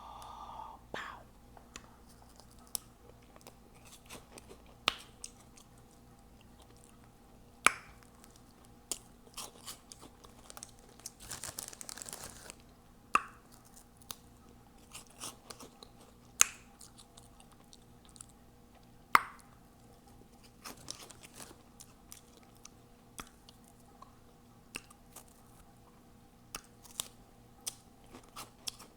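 Close-miked mouth sounds of someone eating Hot Cheeto Puffs: quiet chewing broken every couple of seconds by sharp, loud lip smacks and clicks, a few much louder than the rest. About halfway through there is a denser second or so of chewing noise.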